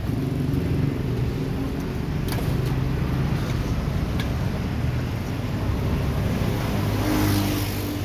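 A motor vehicle engine running steadily as a low hum, swelling louder briefly near the end.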